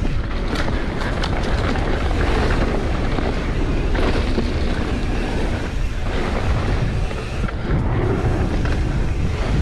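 Wind buffeting the camera microphone over a mountain bike's tyres rolling on a dirt trail, with scattered rattles and knocks from the bike over bumps.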